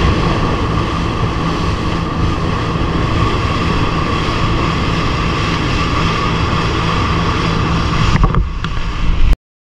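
Fishing boat under way: a steady engine drone under wind buffeting the microphone and water rushing past the hull. A few knocks come near the end, then the sound cuts off suddenly.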